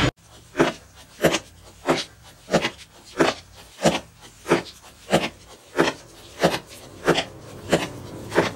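Thirteen short, evenly spaced swishing strokes, about three every two seconds, over a quiet background.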